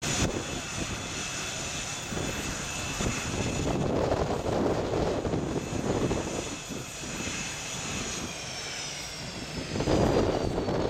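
F/A-18 jet on its landing approach: a steady high whine of its engines over a low rumble, the whine gliding down in pitch from about eight seconds in.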